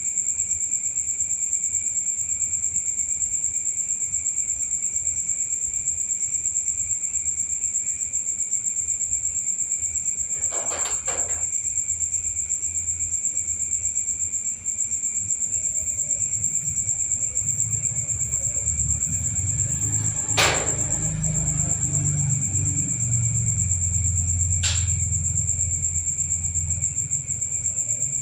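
Insects, likely crickets, trilling steadily in a high unbroken note. A few short knocks come about ten seconds in, again around twenty seconds, and once more near the end, and a low rumble rises in the second half.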